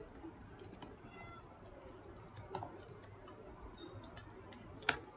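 Computer keyboard being typed on: scattered key clicks in short runs, with one sharper, louder click near the end.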